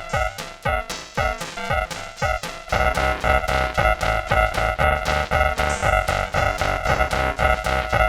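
Effect-processed electronic music: short synth stabs that bend in pitch at a quick steady pulse, joined about two and a half seconds in by a fuller, louder beat with heavy bass.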